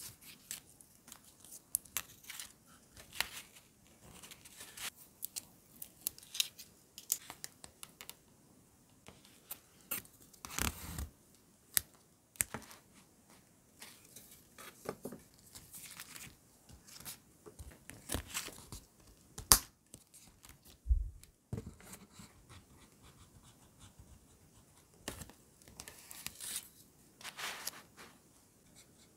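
Close-up paper handling: ruler-print paper strips being handled, peeled and pressed down onto a notebook page, with soft rustling and tearing and scattered light taps and clicks. A sharp click stands out about two-thirds of the way through.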